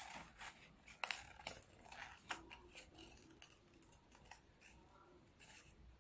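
Small scissors snipping through paper: a few faint, irregular snips, the clearest in the first two and a half seconds, growing fainter later.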